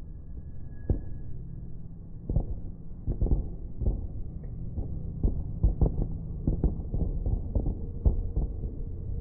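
Fireworks bursts in slow motion, slowed to deep, muffled thuds over a low rumble: one thud about a second in, then a rapid, uneven run of many thuds from about two seconds in.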